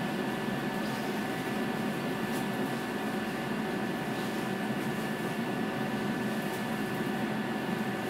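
Stationary tram's ventilation and onboard electrical equipment humming steadily, heard from inside the car, with a steady whine over the hum.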